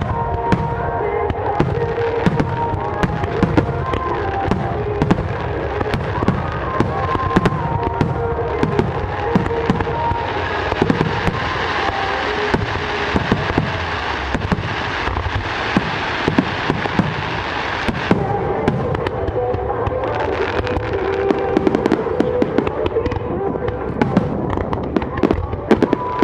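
Fireworks going off in quick succession: a continuous run of bangs and pops from bursting shells. Through the middle and again later the shells give a thick crackle lasting several seconds.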